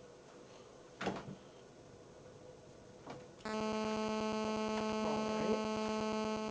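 Two short knocks, then a steady electrical buzz with a rich stack of overtones that switches on abruptly about three and a half seconds in.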